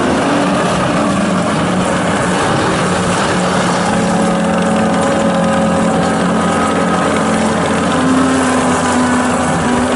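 John Deere 331G skid steer's diesel engine running steadily, with a rise in engine pitch about eight seconds in.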